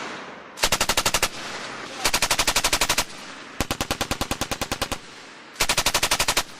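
Belt-fed machine gun firing four short bursts of rapid, evenly spaced shots, each about a second long, with short pauses between them.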